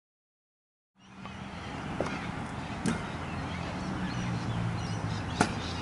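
Silent for about a second, then steady open-air skatepark background noise with a low rumble, broken by a few sharp clacks of scooters on concrete, the loudest near the end.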